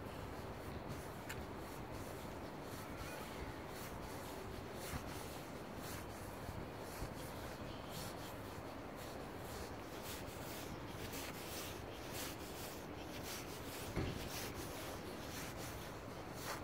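Handling noise of a phone carried while walking: rubbing and light scraping against the microphone, with soft irregular ticks over a steady background hum. A single louder knock comes about fourteen seconds in.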